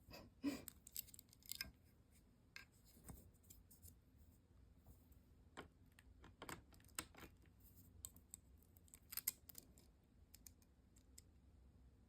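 Scattered light clicks, ticks and short scrapes of a mini chainsaw's chain and bar being handled and fitted, coming in irregular clusters.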